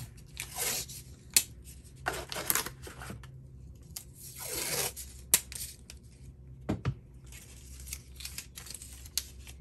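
Blue painter's tape being pulled off the roll in several rasping rips, with a few sharp clicks in between.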